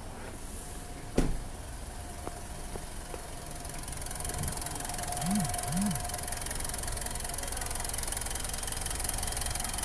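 A single sharp thump about a second in, then the Mitsubishi Strada's diesel engine running at idle with a steady clatter, growing gradually louder as the microphone nears the engine bay.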